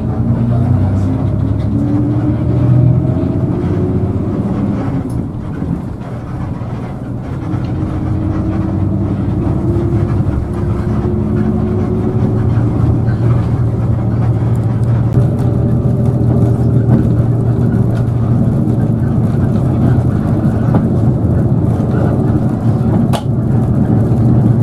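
Intercity coach's engine and road noise heard from inside the passenger cabin. Its pitch rises several times in the first half as the bus gathers speed through the gears, then settles into a steady low drone, with one sharp click near the end.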